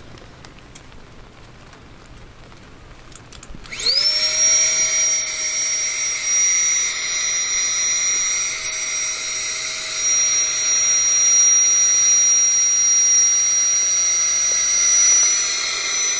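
FLEXTAIL Tiny Pump 2X, a palm-sized battery air pump, switched on about four seconds in: it spins up with a quick rising whine, then runs steadily with a high whine and rushing air as it sucks the air out of an inflatable.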